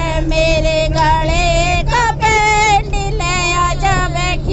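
Women singing loudly in high voices, with wavering, ornamented pitch, over the steady low hum of a moving bus.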